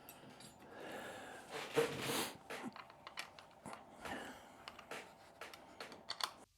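Faint handling sounds of tools and bike parts as a fender bolt is worked out: soft scraping and a few light clicks.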